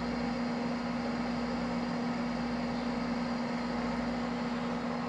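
USB floppy drive spinning a 1.44 MB disk as it reads it: a steady low hum with an even hiss over it.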